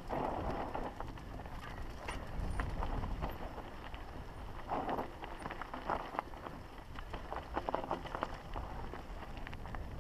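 Mountain bike descending rocky dirt singletrack: tyres crunching over gravel and stones, and the bike rattling and clattering over bumps, over a steady low rumble.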